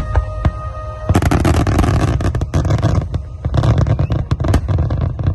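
Fireworks: a few separate bangs, then from about a second in a dense crackling of many sharp pops.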